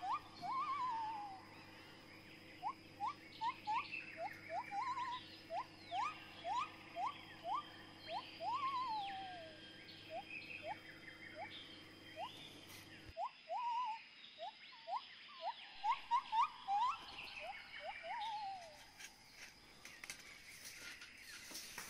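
Animal calls in a nature ambience: short rising chirps, about two a second, some falling away, over a low steady hum that cuts off abruptly a little past halfway.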